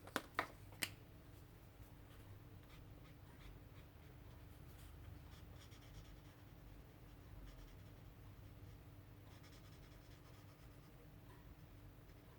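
Faint scratching of a marker drawing on paper, with a few sharp clicks in the first second.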